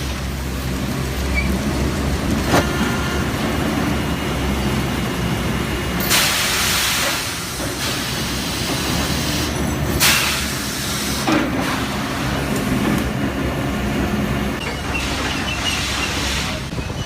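Sawmill machinery running with a steady low hum, broken by louder rushing noises of about a second each, three times a few seconds apart.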